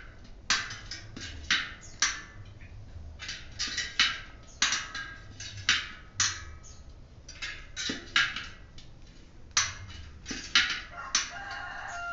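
Bicycle tyre being worked by hand on its rim: a string of irregular sharp snaps and clicks, about one or two a second.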